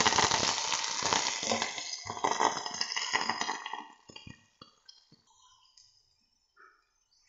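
Chopped onion, garlic, chillies and curry leaves sizzling in hot oil in a steel pot, stirred with a steel spoon, for a tadka. The sizzle dies away about four seconds in, leaving a few light knocks of the spoon on the pot.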